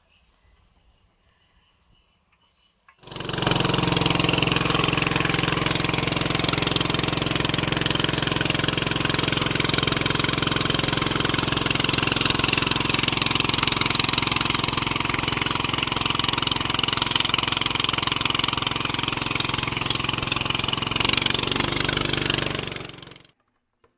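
A small boat's engine running steadily under way, with a loud rushing hiss over it. It starts abruptly about three seconds in and cuts off just before the end.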